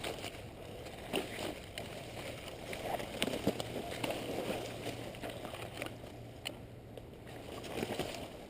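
Footsteps and rustling through dry leaves and brush, with irregular crackles and small clicks of gear, close to the microphone.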